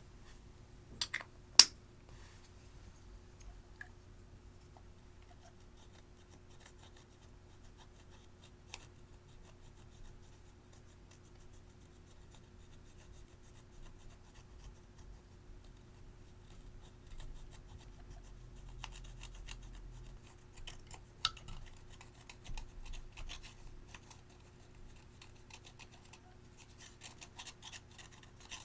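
Close small handling sounds from slime and makeup-mixing work, over a low steady hum. A couple of sharp clicks come about a second in, then a long quiet stretch. Faint scratching and crackling follow, ending in a quick run of clicks.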